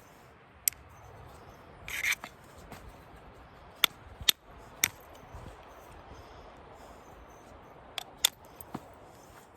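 Elk-bone percussion tool striking the edge of a stone blank during flintknapping: sharp clicks spaced irregularly, with a short rasp about two seconds in.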